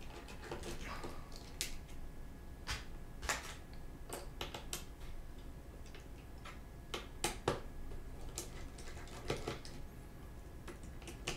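Light, irregular clicks and taps of a precision screwdriver and small screws working on a motherboard's metal M.2 heatsink cover, about a dozen scattered ticks.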